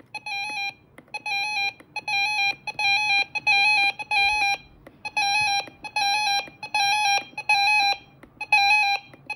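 RadioShack 12-521 weather radio sounding its alert tone while the alert volume is set. It gives short bursts of rapid, high beeps, about two bursts a second, which grow louder as the volume is stepped up.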